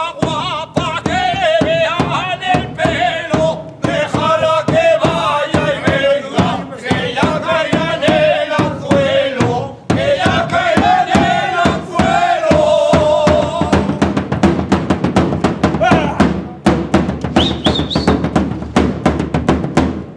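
A group of men singing a traditional festival song together, with a hand-carried bass drum beaten steadily under them. About fourteen seconds in the singing stops and the bass drum carries on alone with quicker beats.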